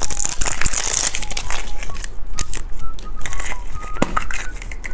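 Plastic wrapper of a candy surprise egg crinkling and crackling as it is torn and pulled open, with many quick sharp crackles.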